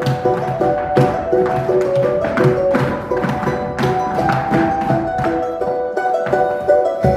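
Folk dance music: a pitched plucked or tuned melody over a steady percussive beat.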